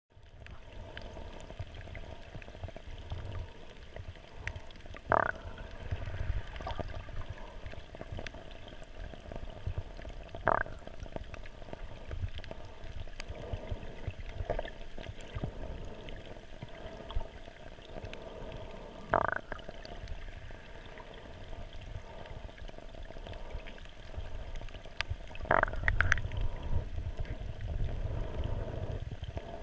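Muffled underwater sound of shallow sea water heard by a camera held just below the surface: a continuous low rumble and slosh of moving water. Four short sharp knocks or pops stand out, near 5, 10, 19 and 26 seconds in.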